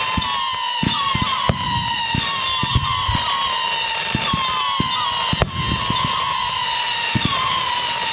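Fireworks display going off: a quick run of low booms with two sharp cracks, one about a second and a half in and one past the middle. A wavering high whistle repeats about once a second throughout.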